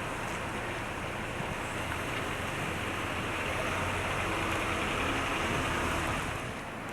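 Street traffic noise: a steady rushing that swells for a few seconds and then falls away shortly before the end, as of a vehicle going past.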